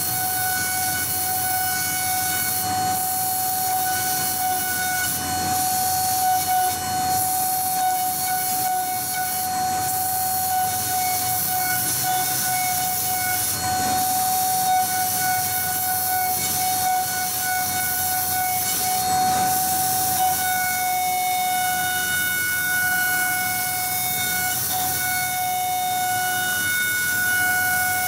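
High-speed CNC milling machine's spindle with a small end mill cutting an aluminium sheet: a steady high-pitched whine with overtones, over a hiss of cutting. The upper overtone grows stronger about three-quarters of the way through.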